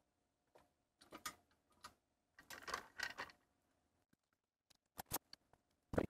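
Faint handling noise on an electronics repair bench: small tools and parts clicking and rustling, with a short scraping rustle in the middle and a few sharp clicks near the end.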